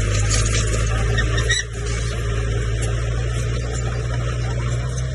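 Komatsu crawler bulldozer's diesel engine running steadily at working revs, with brief high squeaks from the machine through the first second or so.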